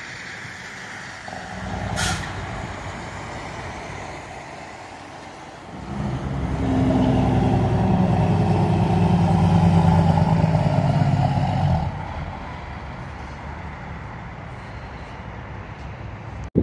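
Semi trucks passing on a highway. The loudest, from about six to twelve seconds in, carries a steady diesel engine sound that drops away fairly suddenly. A brief sharp snap about two seconds in, during an earlier, quieter pass.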